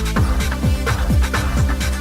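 Electronic dance music with a steady, fast beat of deep kick drums, about four a second, over a sustained bass.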